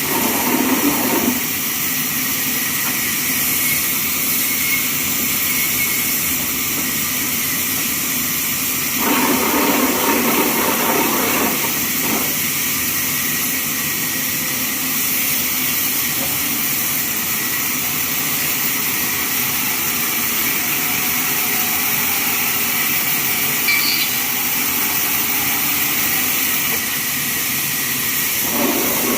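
Band sawmill running with a steady machine noise and hiss; the sound grows fuller for a couple of seconds about nine seconds in and again near the end.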